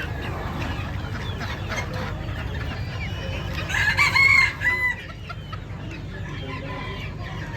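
Many chickens clucking and calling at once, with one rooster crowing loudly about four seconds in, over a steady low hum.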